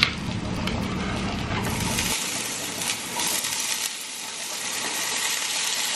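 A few light clicks, then from about two seconds in a steady sizzle of chopped bell peppers and spinach sautéing in a hot pan.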